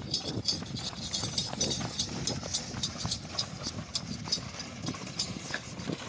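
A bull's hoofbeats at a run on a dirt track, mixed with the rattle of its wooden cart and the scrape of the stone block dragged behind it: a dense, uneven clatter of knocks.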